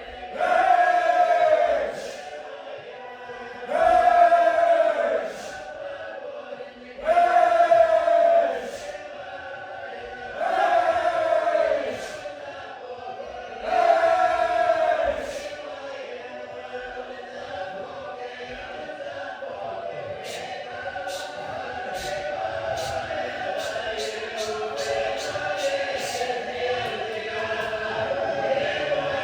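A group of voices chanting a short phrase in loud bursts about every three seconds, then holding a layered sung chord that slowly grows louder. About two-thirds of the way in, a rapid run of sharp hissing consonants comes over the held chord.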